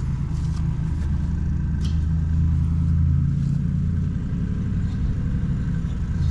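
A steady low engine hum, with a few faint light clicks near the start and about two seconds in.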